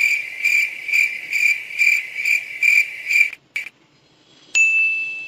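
Cricket chirping in an even pulse of about two chirps a second, which stops abruptly after about three and a half seconds, followed by one short chirp. Near the end a single high ringing ding starts sharply and slowly fades.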